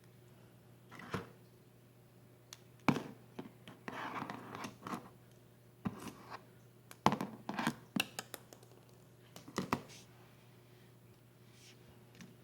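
Hands handling small toy pieces and packaging on a tabletop: scattered light taps and clicks with scratchy rustling, busiest a few seconds in and dying away near the end.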